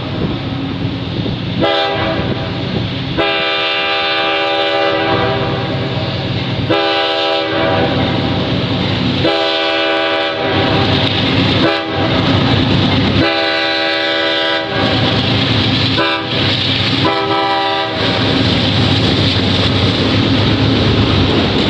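CSX coal train's locomotive horn sounding a string of about eight long and short blasts over the low rumble of the approaching train, the last ending about eighteen seconds in. After that comes the steady rumble of loaded coal hopper cars rolling across the bridge.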